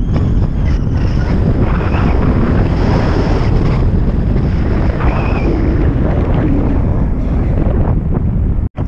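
Wind buffeting a paraglider pilot's action-camera microphone in flight: a loud, steady rush of airflow, cutting out for an instant near the end.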